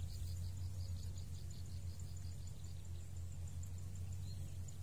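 Insects chirping in rapid, even trains of short high-pitched pulses, several a second, over a steady low hum.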